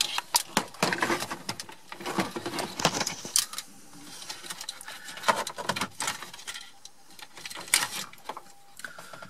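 Hard plastic dashboard fascia and wiring plugs of a VW T5 Transporter clicking, knocking and rattling irregularly as they are worked loose by hand, with a few sharper knocks.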